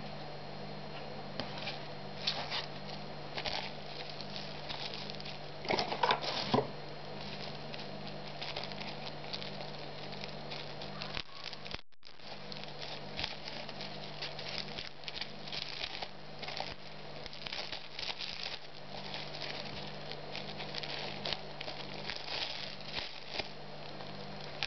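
Clear plastic bag crinkling and rustling as it is handled, in irregular bursts, with a louder cluster about six seconds in.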